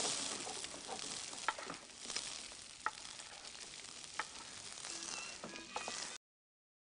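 Rice sizzling in a hot pot as it is stirred with a wooden spoon, with a few light knocks of the spoon against the pot. The sound cuts off suddenly near the end.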